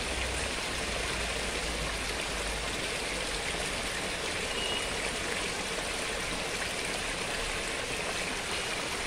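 Rainwater runoff pouring over a small rock ledge and splashing into a stony channel: a steady rush of falling water.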